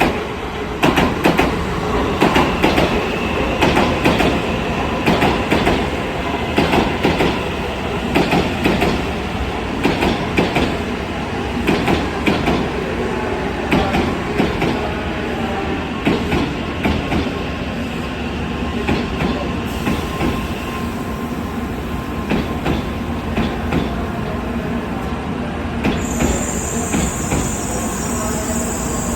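N700A Shinkansen train pulling into a station and slowing. Its wheels click rapidly over the rail joints, the clicks thinning out after about halfway, under a thin steady high whine. A new higher tone comes in near the end.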